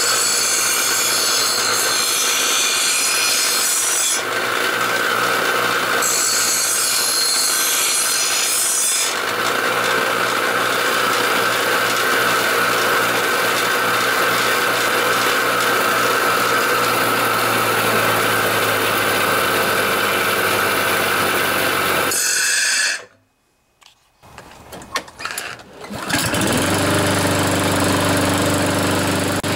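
Bench grinder motor running with a steady whine, and metal pressed against the grinding wheel twice near the start, a harsh hiss of grinding for a few seconds each time. The sound cuts off abruptly about 23 seconds in, and a different steady low sound begins near the end.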